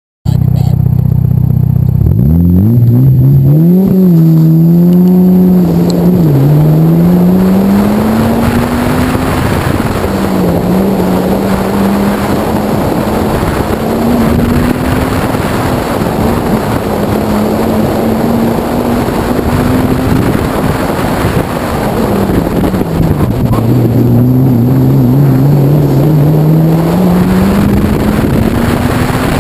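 Car engine heard from inside the cabin under hard driving through a cone course, its note rising and falling between roughly 3,700 and 5,500 rpm as the driver accelerates and lifts. It climbs over the first several seconds, dips briefly twice (around 6 s and around 22 s) and climbs again near the end, over steady wind and tyre noise.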